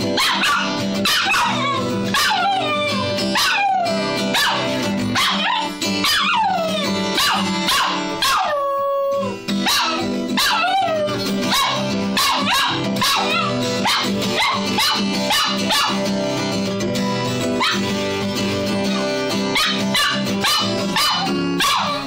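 Maltese dog howling along to a strummed acoustic guitar: a string of howls that slide down in pitch, with one longer held note near the middle that then drops, over steady strumming.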